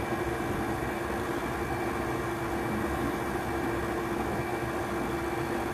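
KitchenAid stand mixer running steadily on low speed, its motor humming evenly as the beater turns through thick cream-cheese batter.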